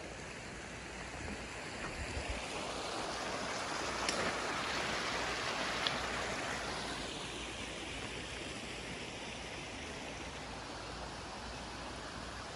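Shallow creek rushing over rocks, a steady wash of running water that swells louder for a few seconds in the middle.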